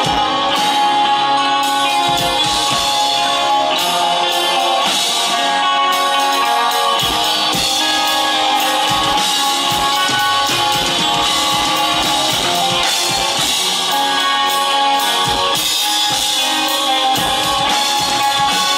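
Live rock band playing the song: electric guitar over a drum kit, with the drums coming in about two seconds in.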